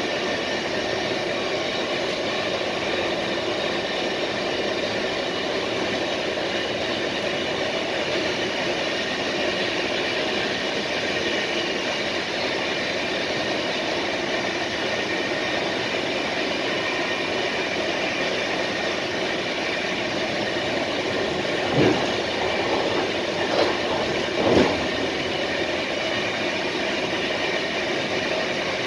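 Steady rolling noise of an Intercity passenger train running at speed, heard from inside its last carriage. Three short knocks come near the end as the wheels cross a set of points.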